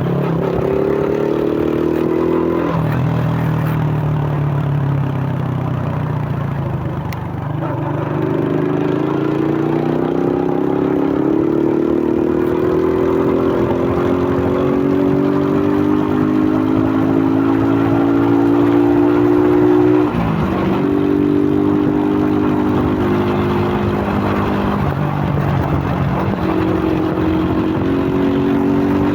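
Suzuki Fiero's single-cylinder four-stroke motorcycle engine, breathing through a K&N pod air filter, running under way: the revs climb slowly and drop sharply several times as the rider works the throttle and shifts gear, with one long rising pull in the middle.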